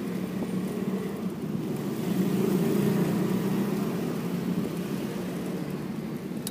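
Road traffic: a steady vehicle engine drone that swells about two seconds in and then eases off.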